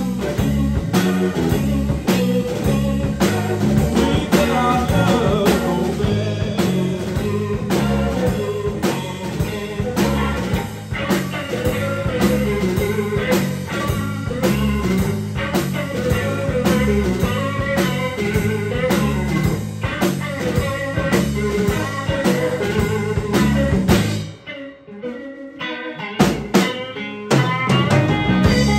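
Live blues-rock trio of electric guitar, bass guitar and drum kit playing an instrumental passage with a steady beat. Near the end the band stops for about two seconds, then comes back in.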